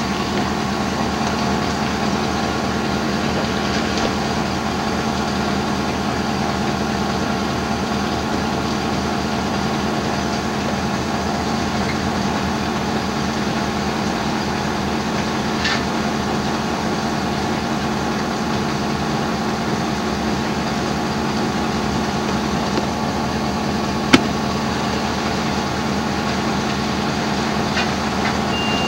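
Car engine idling steadily, heard from inside the cabin, with one sharp click about 24 seconds in and a short high beep at the very end.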